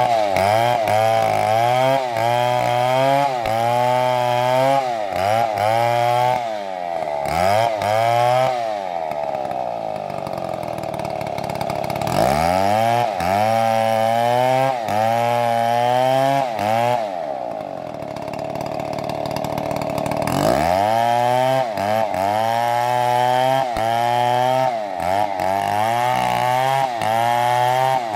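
MS720 two-stroke chainsaw cutting a big tree at full throttle, its pitch dipping and recovering again and again as the chain loads in the wood. It falls back to idle twice, about nine and eighteen seconds in, and revs up again each time.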